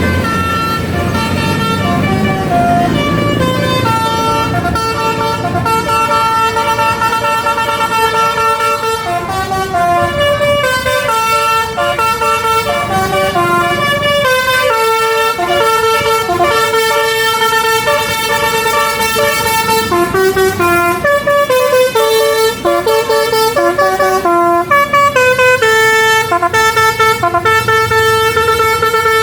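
Basuri multi-tone bus horn ('telolet basuri') playing a melody in held, stepping notes, with a low engine rumble under it, strongest at first.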